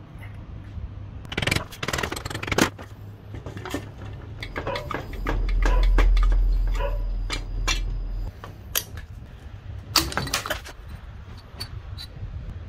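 Metal parts and tools clinking and knocking as they are handled, with a low rumble for about three seconds in the middle.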